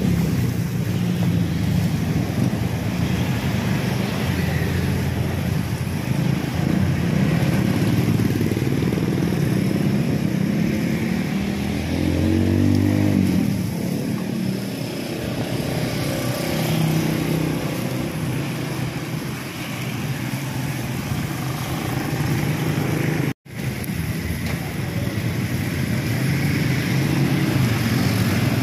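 Steady motor-vehicle engine noise, typical of motorcycles and traffic running close by, with a louder swell about twelve seconds in. The sound drops out for a split second about four-fifths of the way through.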